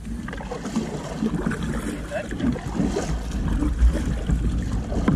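Kayak paddle strokes, the blades dipping and pulling through the water with irregular splashes, over a steady low rumble of wind on the microphone.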